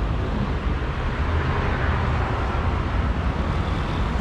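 Road traffic on a busy city street: a steady rumble and hiss of passing cars, with no single standout event.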